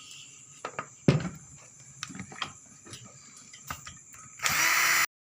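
Scattered metal clicks and knocks as tools and the amplifier's casing are handled, the sharpest about a second in; near the end a power screwdriver starts up and runs steadily, unscrewing the case screws.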